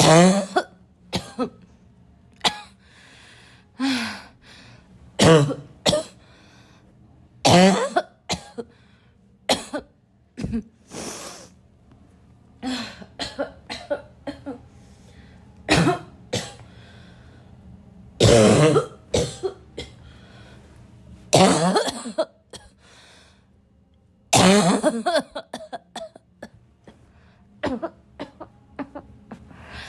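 A person in a loud, barking coughing fit: harsh coughs come in bouts every few seconds, with fainter coughs between them.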